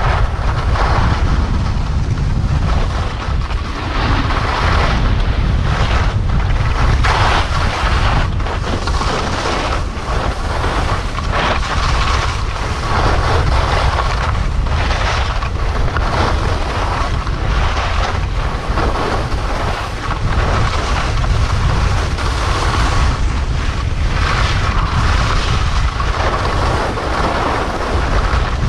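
Wind rushing over the microphone as a skier descends at speed, a steady low rumble, with the hiss and scrape of skis on packed snow swelling and easing every second or so as the skier turns.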